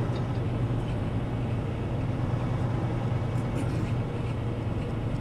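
Kenworth T680 semi-truck's diesel engine running steadily at low speed, a constant low drone heard from inside the cab.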